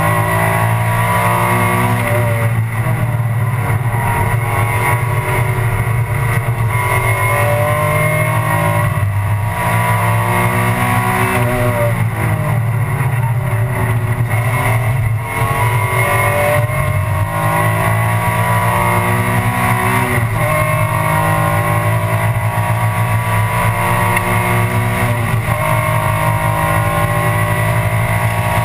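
Interior onboard sound of an Alfa Romeo 156 GTA race car's V6 engine at full throttle. It revs up through the gears, dropping sharply in pitch at each shift. About 15 s in it briefly lifts off for a corner, then pulls hard again.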